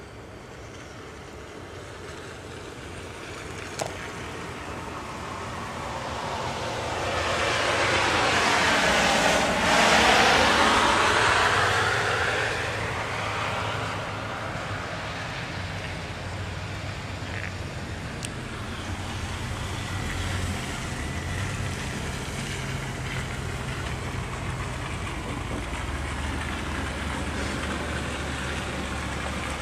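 A vehicle passes on a snow-covered road, its tyres hissing through the snow and slush. The sound swells to its loudest about ten seconds in, then fades. A steady low engine hum of slow traffic continues after it.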